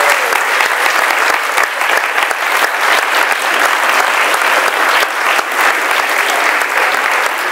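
Audience applause: loud, dense, steady clapping that goes on without a break.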